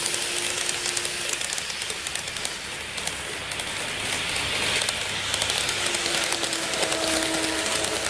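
N-gauge model trains (KATO 789 series 1000 and 731 series) running on the track: a continuous rushing hiss with fine ticking as the wheels roll over the rails and rail joints. A steady motor whine is heard at the start and comes back from about six seconds in as the 731 series passes close.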